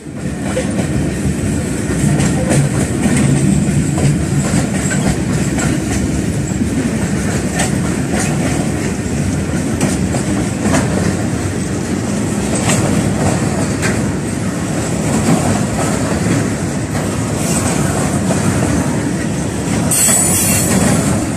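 Freight train of open box wagons and covered hopper wagons passing close by, its wheels rumbling along the rails and clacking over the rail joints, with a thin high wheel squeal. A brighter hiss comes in near the end.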